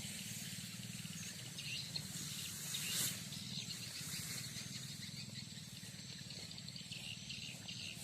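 A small engine running steadily at a low, even pulse, with high chirping over it and a brief louder rush about three seconds in.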